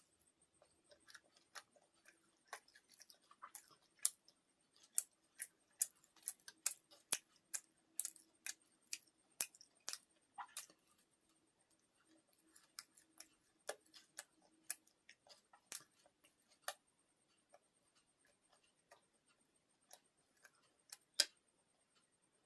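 Quiet eating sounds: sharp, irregular mouth clicks and smacks of chewing, coming quickly in the first half and thinning out later, with one louder click near the end.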